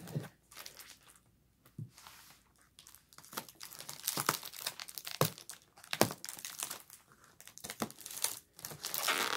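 Clear plastic air-column packaging crinkling and rustling as it is handled, in irregular crackles that pick up after a quiet first few seconds.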